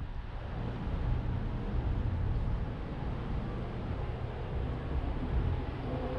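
Steady low rumble of a car driving on city streets, picked up by a camera mounted on the outside of the car: road and engine noise with the surrounding traffic.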